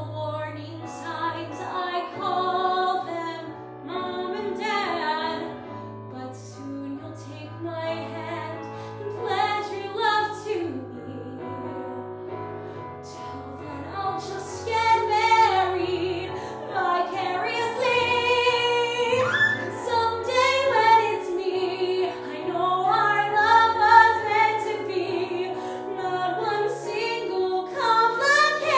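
A young woman singing solo over a recorded accompaniment, with long held notes that waver in pitch, growing louder from about halfway through.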